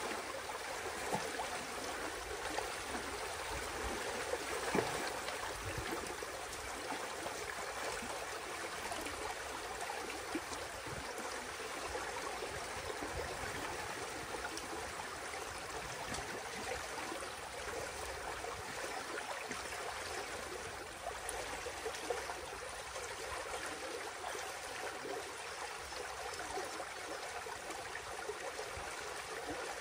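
Water rushing steadily through a breach in a beaver dam as the dammed pond drains, with a couple of light knocks in the first few seconds.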